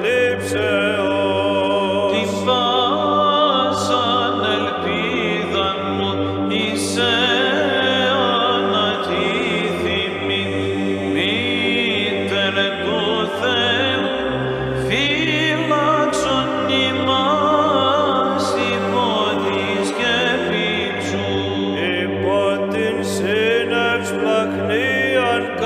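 Byzantine chant: a man's voice sings a slow, ornamented Greek Orthodox hymn over a steady low held drone (the ison), which shifts pitch about halfway through.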